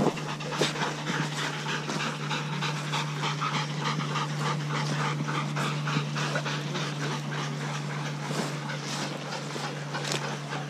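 A team of sled dogs in harness panting hard at rest after a run, quick breaths at about three to four a second, to shed heat through their tongues. A steady low hum runs underneath.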